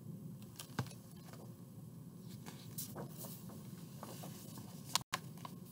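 Paper rustling and a few light clicks as a large picture book's page is handled and turned over.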